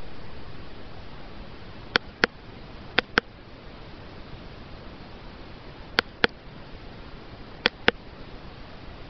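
Four quick pairs of sharp clicks from a person's mouth, each pair about a quarter second apart, over a steady hiss.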